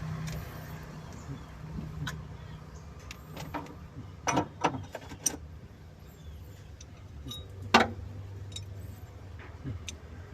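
Mitsubishi L300 van engine idling steadily, with a few sharp metallic clinks and knocks over it, the loudest about two-thirds of the way in.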